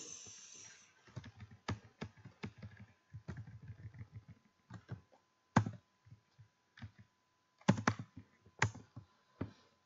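Typing on a computer keyboard: irregular keystroke clicks, with a few sharper ones about halfway through and a quick cluster near the end.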